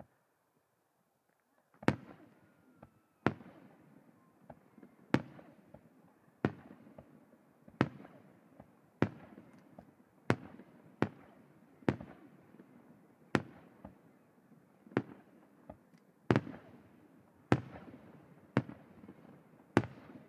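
Aerial firework shells bursting overhead in a steady volley: after about two seconds of quiet, a sharp boom roughly every second or so, more than a dozen in all, each trailing off in a rolling echo.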